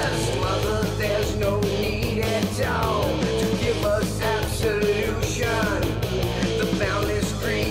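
Background rock music with a fast, steady drum beat.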